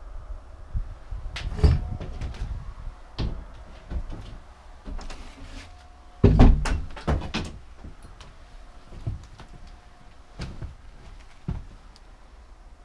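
An old wooden door being handled, with irregular knocks and thumps from it and from footsteps. The loudest cluster of knocks comes about six seconds in.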